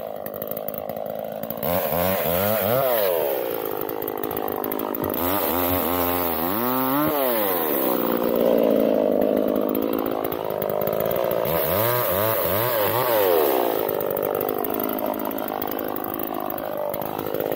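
Chainsaw cutting fallen branches, its engine revving up and dropping back again and again, with three clear rev sweeps and steadier high running under load in between.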